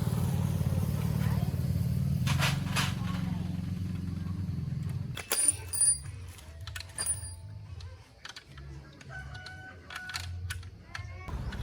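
Motorcycle engine idling steadily, cutting out about five seconds in and starting up again near the end. In the gap there are scattered clicks and chickens calling.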